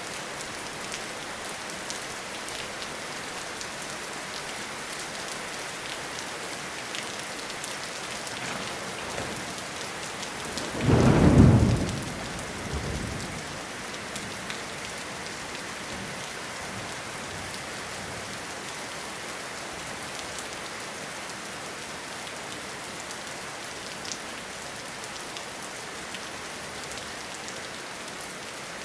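Steady rain falling, with one loud thunderclap about eleven seconds in, followed by a shorter, fainter rumble a second later.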